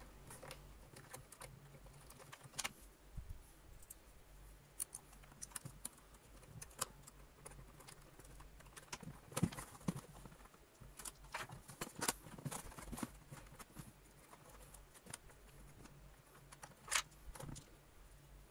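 Faint, irregular clicks and light knocks of hands working a mains cable's wires into the terminal block of a Hoover Junior's switch and shifting the plastic body, with a few louder clicks in the second half.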